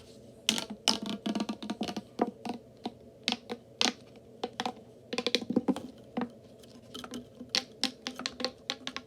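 Plastic pop tube fidget toy making a series of irregular sharp clicks and pops as it is worked, with some quick clusters of clicks.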